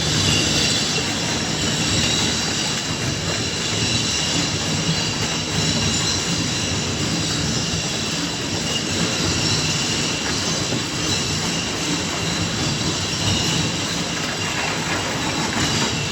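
Tomra bulk-collection reverse vending machine running steadily as its conveyors carry and sort a load of bottles: a loud, continuous mechanical rattle with a steady high whine over it.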